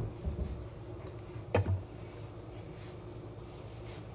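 A kitchen cupboard door knocks once, about one and a half seconds in, against quiet room tone.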